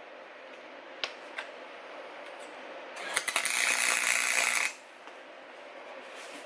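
Electric welding arc crackling in one burst of about a second and a half, starting about three seconds in, as a nut is welded onto a broken bolt stub in the engine block. Two light clicks come before it, over a faint steady hiss.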